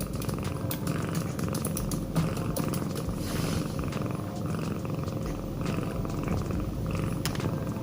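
Pet cat snoring in its sleep: a low rumble that swells and fades with each breath, a cycle every second or two.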